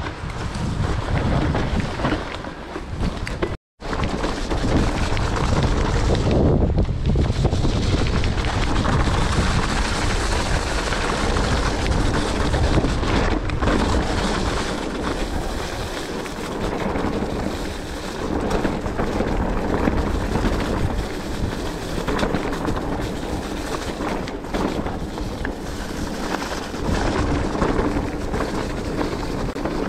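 Wind buffeting the microphone over the rumble of a mountain bike riding a rough, muddy trail. The sound drops out completely for an instant about four seconds in.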